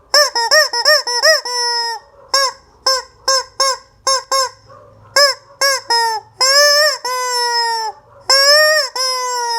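Rubber squeaky chicken toy squeezed over and over, giving loud nasal squawks: a quick run of short squawks, then several spaced ones, then two long drawn-out squawks near the end.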